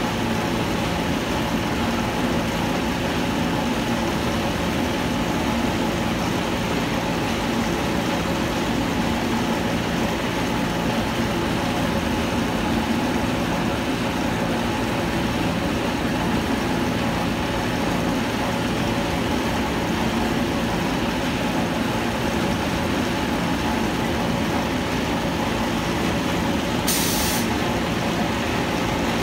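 Mini concrete batching plant (15 m³/hr) running: drum mixer, motors and conveyors giving a steady mechanical din with a low hum. A brief hiss near the end.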